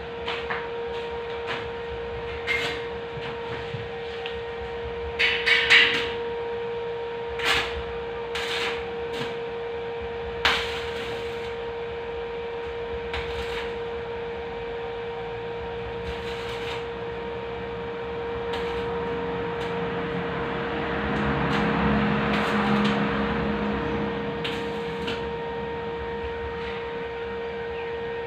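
Scattered sharp knocks and taps, like metal being hammered or tapped, over a steady electrical hum. A few knocks come in a quick cluster about five seconds in, and a louder rushing patch swells and fades later on.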